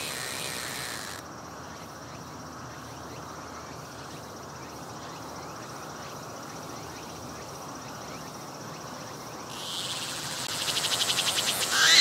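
A cicada singing: its high buzz stops about a second in, leaving only a faint steady high hum. Near the end the song starts again as a rapid pulsing buzz that grows louder.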